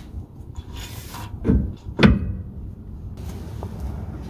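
Two metal clunks about half a second apart, the second sharper with a short ring, as the driveshaft's U-joint yoke is fitted against the pinion flange of a Ford 8.8 rear axle.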